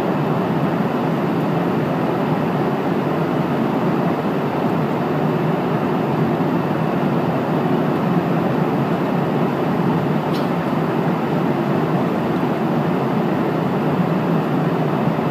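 Steady cabin noise of an airliner in flight: the even, unbroken rush of the engines and airflow heard inside the passenger cabin.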